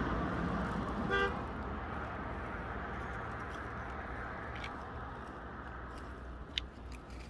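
A short, single car-horn toot about a second in, over the low rumble of a vehicle that slowly fades away.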